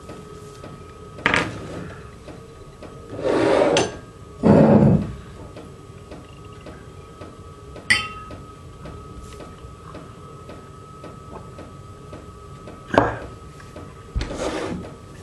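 Small objects, a matryoshka doll among them, being handled and set down on a table: a few separate knocks and clacks, spread out, with short rubbing or thumping sounds between them. A faint steady high-pitched hum runs underneath.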